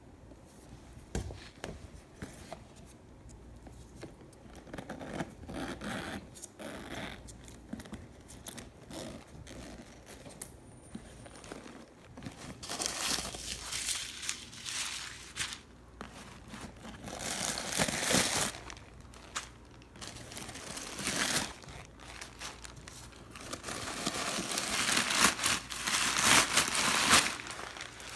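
White packing paper crinkling and crumpling as hands pull it out of a leather tote bag, with quiet handling at first and then several bursts of rustling in the second half, loudest near the end.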